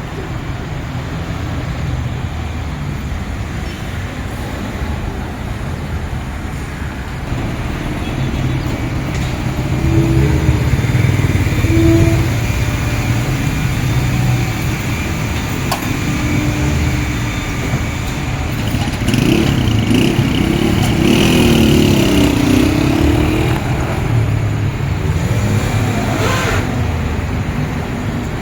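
Car engine running steadily, then revving with pitch rising and falling partway through.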